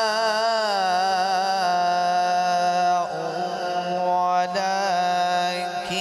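A man reciting the Quran in melodic tilawat style, holding long notes with ornamented, wavering pitch, with a brief break about three seconds in.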